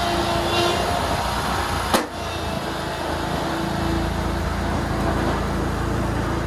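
SCAG V-Ride II stand-on mower's engine running steadily while it plows light snow, with one sharp knock about two seconds in. A heavier low rumble comes in about halfway through.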